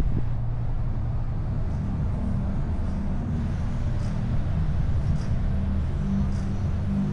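A car being driven, with a steady engine hum and road noise that shift slightly in pitch. A few faint high ticks come now and then.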